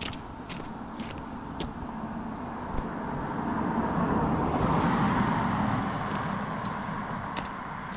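A road vehicle passing by, its noise swelling to a peak about halfway through and then fading away, over regular footsteps about twice a second.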